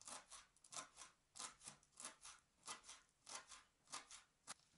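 Kitchen knife finely chopping fresh parsley on a wooden cutting board: faint, uneven cuts, about three a second.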